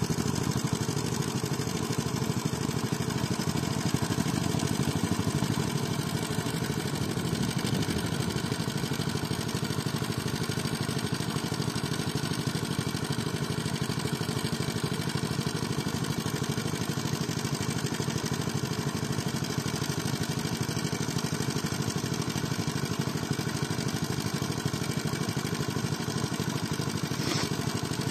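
Small single-cylinder diesel engine of a shallow-tubewell irrigation pump running steadily, with water gushing from its outlet pipe into the paddy. A power tiller's engine works further off.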